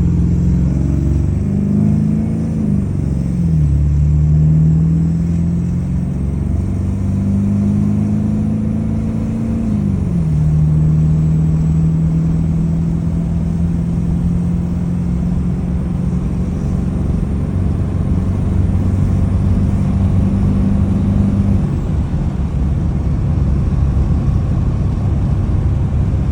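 Ford 7.3L Powerstroke turbo-diesel V8 with a freshly rebuilt turbo, pulling a heavy trailer. The engine pitch climbs and then drops at two gear changes, about three and ten seconds in, then holds steady. A faint high whine runs above it.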